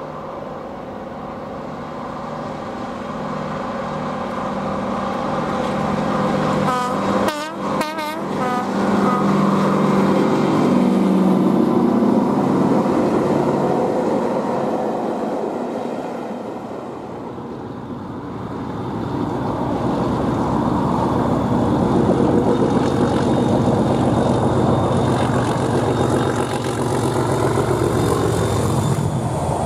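A diesel locomotive approaches under load with a loud engine, sounding its horn briefly about seven seconds in. After a break, a Colas Rail Freight Class 37 diesel with its English Electric V12 engine works hard as it passes, the engine sound building and staying loud.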